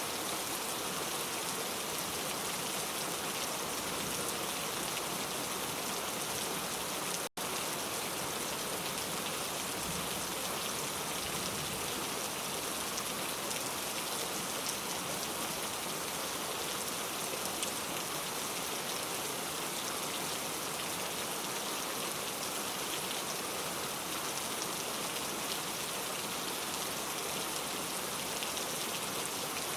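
Heavy rain falling in a steady, dense downpour. The sound cuts out for an instant about seven seconds in, then resumes unchanged.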